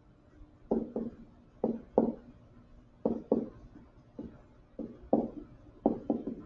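Pen stylus tapping against a writing screen as words are handwritten: about a dozen short, irregular taps, roughly two a second.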